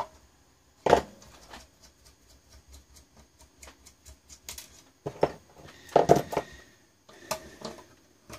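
Clicks, taps and clatter of hands and tools working on an analog panel meter as it is opened up, in a few separate bursts, the loudest about six seconds in.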